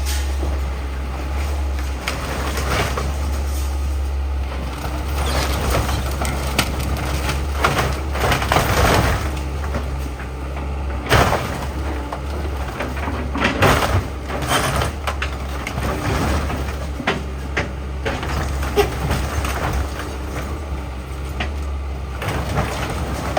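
Heavy demolition machine running with a steady low engine drone, while debris is crunched and scraped now and then, with a few loud crashes near the middle.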